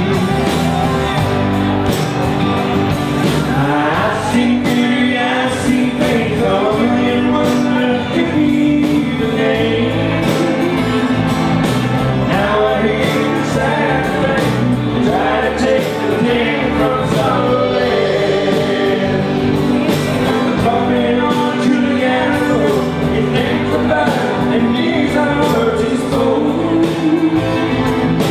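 A live band plays a song: a male lead singer over electric bass guitar, drums and keyboards, in a large hall.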